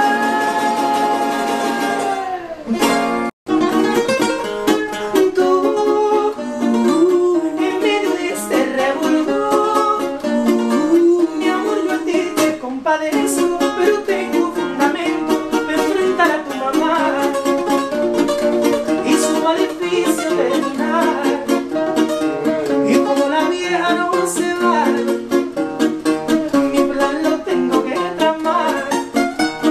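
Two acoustic guitars plucking a bachata accompaniment with a man singing over them; a long held sung note opens, and the sound drops out for an instant about three seconds in.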